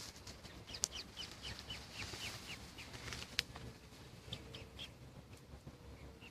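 A bird calling in quick runs of short, falling chirps, about five a second, with two sharp clicks, one about a second in and one near the middle.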